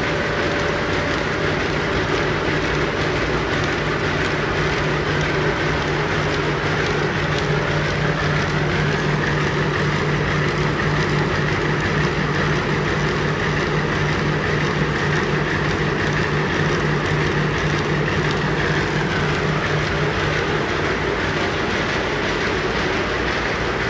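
Waste-oil re-refining plant machinery running steadily: an even mechanical rush with a low hum that sets in about a second in and fades near the end.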